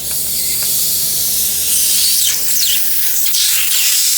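Nitrogen gas rushing backwards through a refrigerator's capillary tube, a loud steady hiss that starts suddenly, with a few brief squeaky glides in the middle. The strong flow shows the cap tube is clear.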